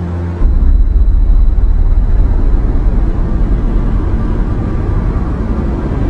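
A loud low rumble cuts in suddenly about half a second in and carries on unsteadily, with no clear pitch.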